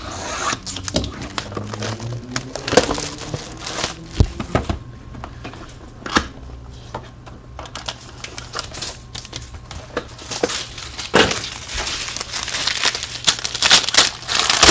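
A football trading-card box and its wrapping being opened and handled: a run of crinkling, tearing and sharp clicks of cardboard and plastic, busiest near the end.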